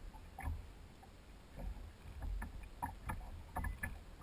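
Wind rumbling over the microphone outdoors, uneven in strength, with scattered short faint clicks and ticks.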